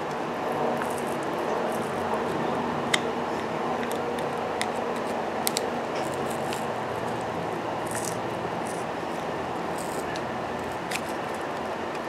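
Flathead screwdriver prying and scraping in the sawn groove of a golf ball, levering its plastic shell off the rubber core: scattered short scratchy scrapes and creaks, with a sharp click about three seconds in and another about five and a half seconds in, over a steady background noise.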